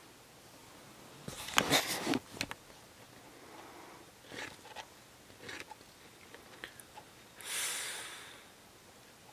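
Close handling and rustling noises: a cluster of sharp clicks and knocks, a few lighter clicks, then near the end one short burst of breathy rushing noise close to the microphone.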